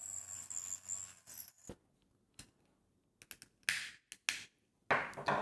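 A Proxxon mini rotary tool whines at high speed for about a second and a half, cutting into the seam of a sealed plastic case. Then a screwdriver prying the case open gives scattered sharp clicks and short cracking noises, with a stronger one near the end.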